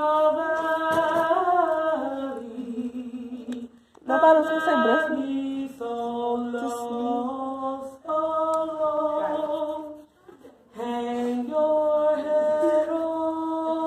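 A voice singing long held notes that step up and down in pitch, in three phrases with short breaks about four seconds in and about ten seconds in.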